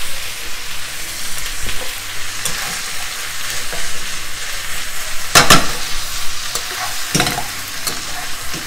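Beef, chorizo and bell peppers sizzling in a frying pan as they are tossed with metal tongs. The tongs clink against the pan a few times, loudest about five and a half seconds in.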